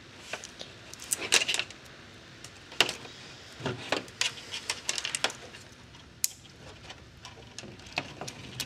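Hands handling a bill validator's wiring harnesses and plastic parts on a workbench: scattered small clicks and rattles at irregular moments.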